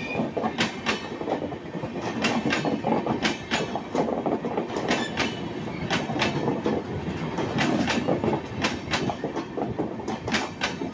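Indian Railways LHB passenger coaches rolling past, their wheels clicking over rail joints in short quick groups, roughly one group a second, over a steady rumble.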